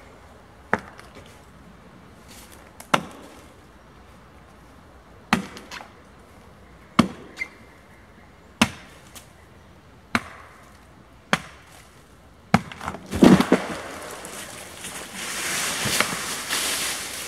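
Axe chopping into the butt of a hung-up, leaning tree trunk, about ten single blows one to two seconds apart. About thirteen seconds in the wood gives way with a loud crack, and the trunk comes down through the branches of the tree it was lodged in with a long crash of breaking twigs and rustling leaves.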